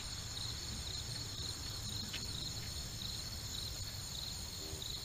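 Insects chirping in a steady high-pitched chorus, over a low rumble.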